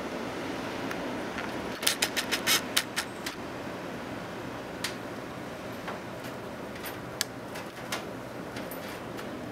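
Steady rush of strong wind, with a quick run of about eight sharp clicks about two seconds in and a few single clicks scattered after.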